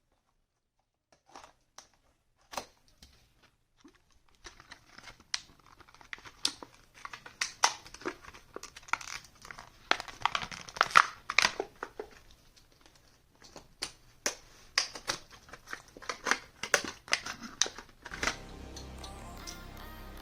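Hot Wheels packaging being opened: a long run of irregular, sharp crinkling and tearing crackles. Music comes in near the end.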